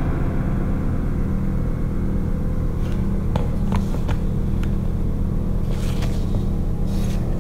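Low, steady droning background music, with a few faint clicks around the middle.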